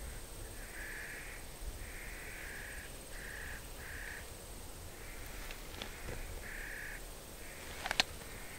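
A bird gives a series of about six harsh, crow-like caws, each under a second long, with gaps between them. A sharp click comes near the end.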